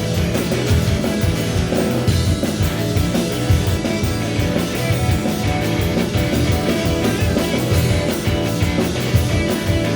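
A live rock band playing an instrumental passage, with drum kit, bass and electric guitar.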